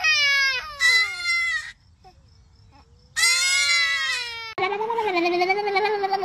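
A toddler crying in three wails that fall in pitch, with a short quiet pause between the second and third. Near the end, after a cut, a different steady, wavering pitched sound begins.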